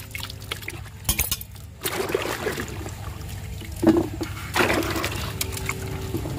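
Peeled papaya pieces being swished by hand in a bucket of water and lifted out onto a steel plate: water splashing and dripping, with a few clinks and knocks on the plate, the loudest about four seconds in.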